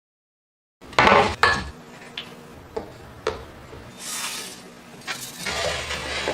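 Under a second of dead silence, then a series of sharp knocks and clatters of hard objects, loudest about a second in, over a faint low hum.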